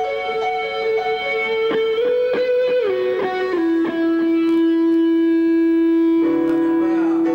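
Electric guitar played through a Marshall amplifier: sustained notes with a slide down about three seconds in, then one long held note, joined by a lower note about six seconds in.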